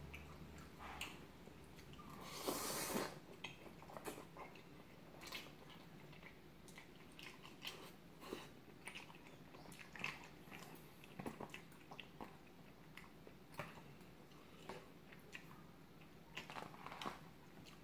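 A person eating spicy-tuna bibim udon with chopsticks from a plastic tray: faint chewing and mouth sounds with many small clicks and taps. About two and a half seconds in comes one louder noisy sound lasting under a second.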